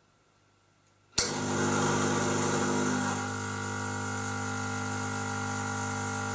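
Espresso machine pump switching on about a second in and running with a steady hum, labouring against a blind basket during a detergent back-flush. It eases slightly in level about three seconds in.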